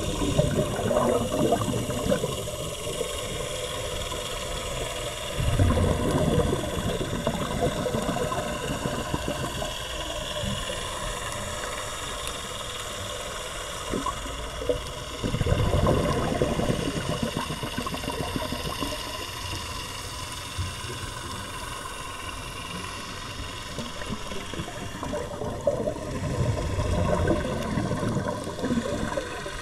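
Scuba regulator exhaust bubbles heard underwater: a crackling, bubbling burst on each exhalation, four in all, about ten seconds apart, over a steady faint hum.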